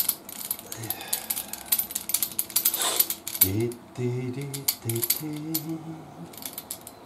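Rapid metallic clicking of a ratchet wrench and tool handling as the brake caliper's Allen bolts are tightened. From about halfway a man's low voice hums without clear words.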